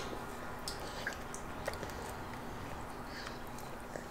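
Toddlers chewing cara cara orange segments: faint, scattered wet smacks and clicks of eating.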